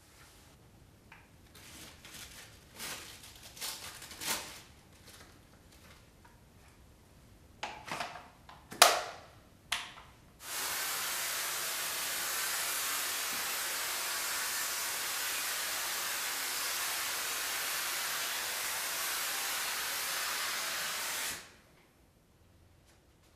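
Kärcher SC 1020 steam cleaner jetting steam from its hose nozzle: a steady hiss that starts about ten seconds in, runs for about eleven seconds and cuts off suddenly. Before it, cloth wiping and handling noises and one sharp knock.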